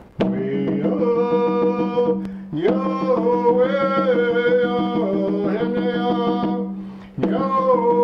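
A man singing a Pueblo chant while beating a hide-headed wooden Pueblo drum with a padded drumstick in a steady beat. The singing runs in long held phrases, with short breaks about two and a half seconds in and shortly before the end.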